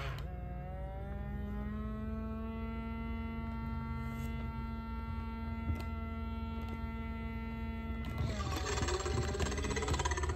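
Motor of a Mattel D-Rex animatronic dinosaur toy whirring steadily with an even, droning pitch. About eight seconds in, a rougher, wavering sound takes over.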